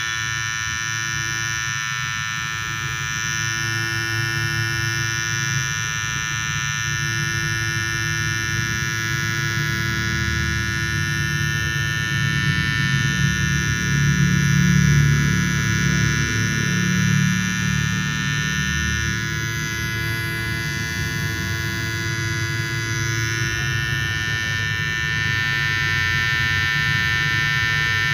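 Electric detailer hair trimmer running with a steady high-pitched buzz over a low hum, growing a little louder about halfway through.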